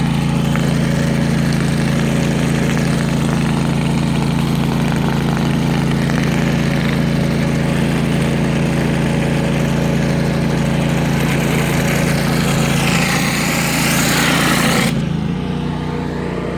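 Pressure washer engine running steadily under the loud hiss of water jetting from a surface cleaner onto concrete. Near the end the spray hiss cuts off suddenly and the engine keeps running.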